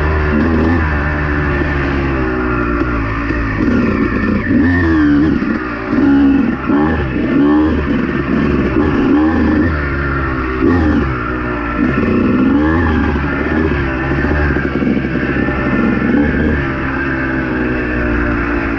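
Honda two-stroke dirt bike engine revving up and down again and again as it is ridden, its pitch rising and falling every second or two.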